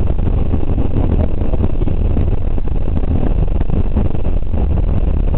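Cabin sound of a BMW 325iX rally car driven on a gravel stage. Its 2.5-litre straight-six engine runs under load beneath steady road and gravel noise. The sound is loud and even, heaviest at the low end, and peppered with short rattles.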